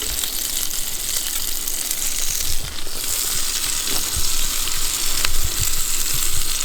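Breakfast food sizzling in a frying pan, a steady frying hiss with a few faint clicks.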